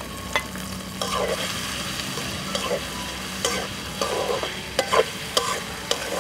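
Sliced onions dropped into hot oil in a karahi, sizzling as they begin to fry, louder from about a second in. A spatula stirs them, scraping and clicking against the pan several times.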